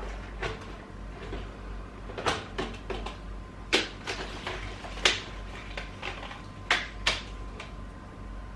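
Irregular sharp knocks and clacks from mopping a polished timber floor, about seven of them, the loudest about four and five seconds in. A steady low hum runs underneath.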